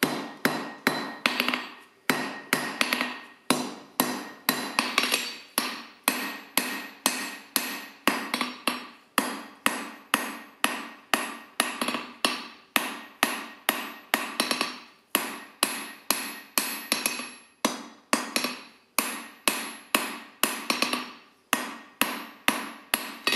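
Forging hammer striking a hot steel bar on an anvil in a steady rhythm of about two blows a second, with the anvil ringing briefly after each blow, as the end of the flat bar is drawn out into a taper.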